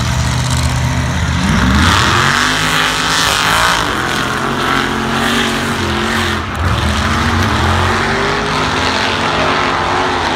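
Engines of two lifted pickup trucks revving up about two seconds in and then running hard at high revs, pitch wavering as they race up a snow-covered hill.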